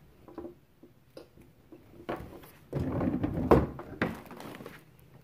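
Rustling and knocking, with a few small clicks, then a louder second of rubbing and clattering that peaks in a sharp knock about three and a half seconds in.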